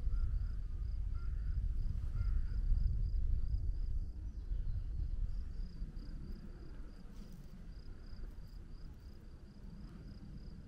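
Wind rumbling over the microphone, strongest in the first half and easing off, while an insect chirps steadily on a high note about three to four times a second.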